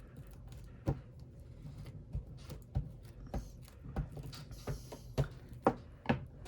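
Paper and craft materials handled on a tabletop: a series of irregular sharp taps and knocks, with a brief paper rustle a little before the end.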